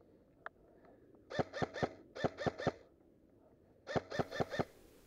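Airsoft gun firing three short bursts of about four shots each, the bursts starting about a second and a half in, just past two seconds, and near the end.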